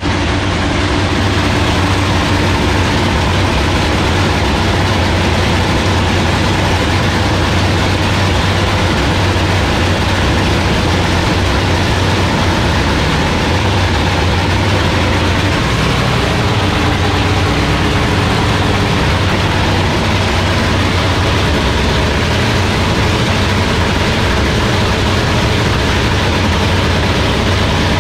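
Dragster engine idling steadily in the pits during a warm-up, a loud, even, low rumble.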